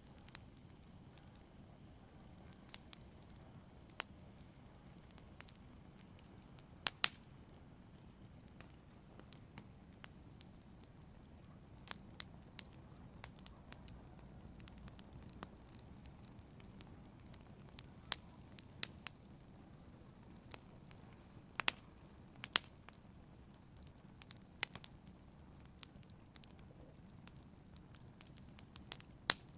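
Wood fire burning in a fireplace: a steady low rumble with irregular sharp crackles and pops from the logs, a few of them louder, about seven seconds in and again twice near the middle.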